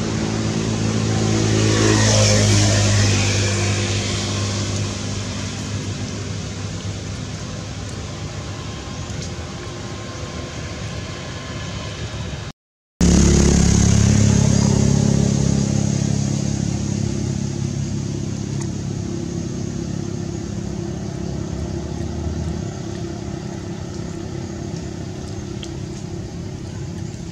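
Motor vehicle engine running. It swells about two seconds in and then fades. After a brief gap in the audio about halfway through, it comes back loud and slowly dies away.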